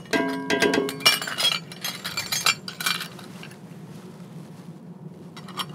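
A ring of stainless steel measuring spoons jangling and clinking as they are handled, with a ringing metallic note just after the start. The clatter dies down about three seconds in, with one more clink near the end.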